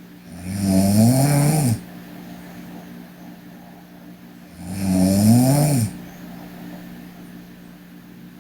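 A sleeping girl snoring: two long snores about four seconds apart, each rising and then falling in pitch, over a steady low hum.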